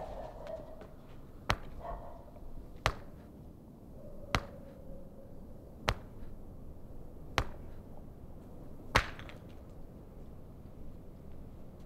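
Six sharp single hits, evenly spaced about a second and a half apart, over a low steady background.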